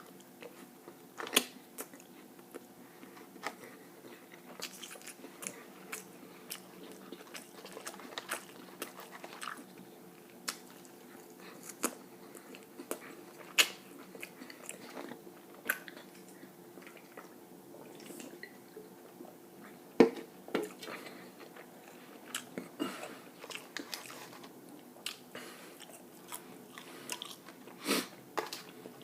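A person eating close to the microphone: irregular bites and chewing with many sharp mouth clicks, one louder click about twenty seconds in, over a faint steady hum.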